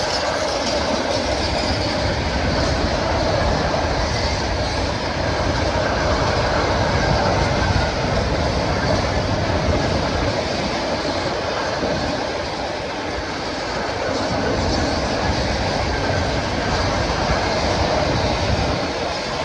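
Freight train rolling past over the level crossing: a steady loud rumble of wagons, with the wheels clattering over the rail joints.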